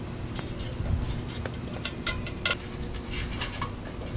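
Hands and shoes on the rungs of a caged steel ladder during a climb, giving light clanks and taps, some with a short metallic ring, over a steady low hum.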